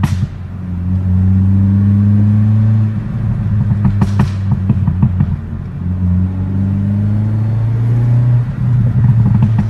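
Hyundai i30 N's turbocharged 2.0-litre four-cylinder engine and exhaust heard from inside the cabin while driving, the engine note rising in several pulls with short dips between them. There is a sharp pop about four seconds in and another near the end.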